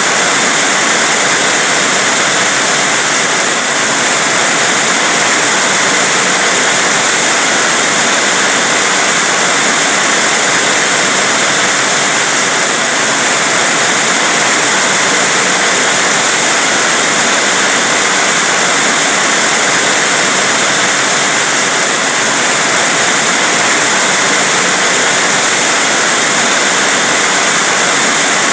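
Heavy rain falling in a steady, loud, unbroken hiss.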